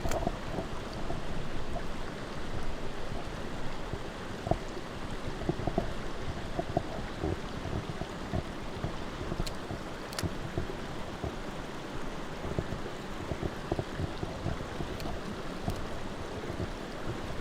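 Mountain stream water rushing steadily, with a few short sharp clicks.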